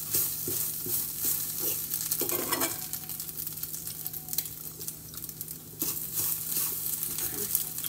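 Pancakes sizzling in a hot griddle pan while a fork stirs and scrapes scrambled eggs in a skillet, with small clicks of metal on the pan.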